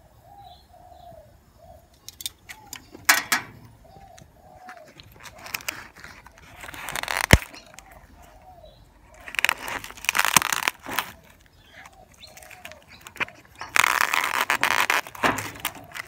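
Plastic cling film crinkling in several bursts as it is peeled back from a meat tray, loudest about seven, ten and fifteen seconds in. Behind it a dove coos over and over, a short rising-and-falling note.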